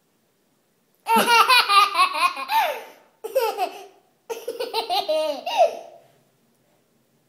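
An 18-month-old toddler laughing in three high-pitched bursts, the first starting about a second in and the longest near the end.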